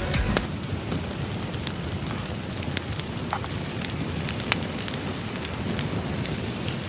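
Wood campfire crackling steadily, with scattered sharp pops and snaps.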